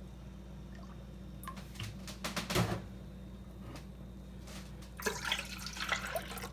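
Milk being poured into an Instant Pot's inner pot, with a few light knocks and a short splashy stretch near the end.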